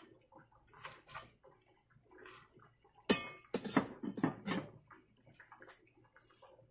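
Kitchen clatter of dishes and utensils: scattered light clicks, then a sharp knock about three seconds in and a quick run of rattling knocks over the next second and a half.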